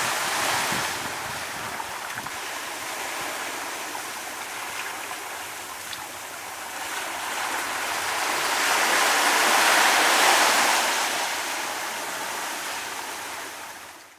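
Rushing noise of water and wind, swelling about two-thirds of the way through and fading out at the end.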